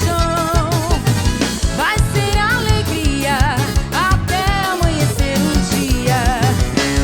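Upbeat Latin-style band music with a steady drum-kit beat under a wavering lead melody.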